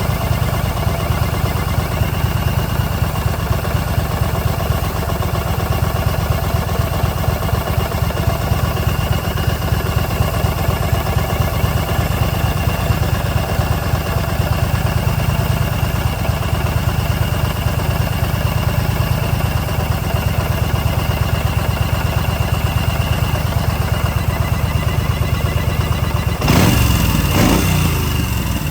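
Yamaha XV950 Bolt's air-cooled V-twin idling with a steady, even pulse; the bike has an intake manifold air leak that causes an abnormal noise. A brief louder surge near the end.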